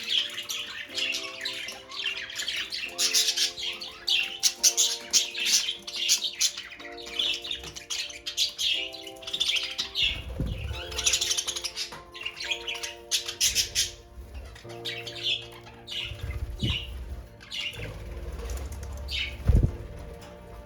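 Budgerigar chattering and squawking in fast, high chirps, over background music with held chords. A few dull low thumps come in the second half.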